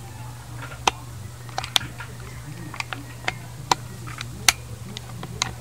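Small, sharp mechanical clicks from the safety and trigger mechanism of a Manlapat .22 CO2 air rifle being handled, about ten of them at irregular intervals.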